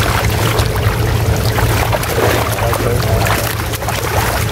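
Fish thrashing and splashing in a seine net drawn tight at the pond's edge, with water churning as the catch is scooped out by hand. A steady low hum runs underneath.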